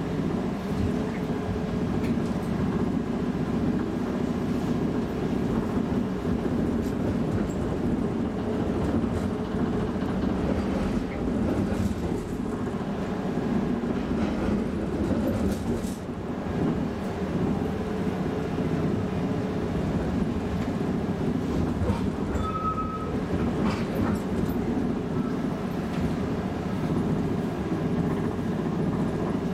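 A UTDC CLRV streetcar heard from inside the car while running along the track: a steady low rumble of wheels and running gear, with a few faint clicks and a short high tone about three-quarters of the way through.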